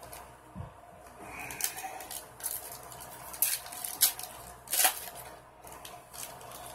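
Foil wrapper of a 2006 Bowman football card pack crinkling and tearing as it is ripped open by hand: a run of sharp crackles, loudest about four to five seconds in.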